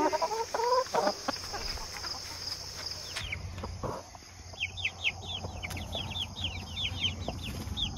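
Adult chickens clucking a few times over a steady high insect hum. Then, from about four and a half seconds in, four-week-old chicks peeping in a quick run of short, falling chirps, several a second.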